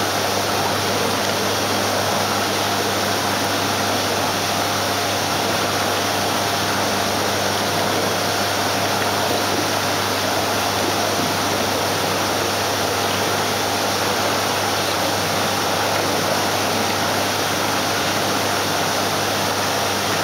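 Steady rushing noise with a constant low hum from aquarium pumps and filtration, unchanging throughout.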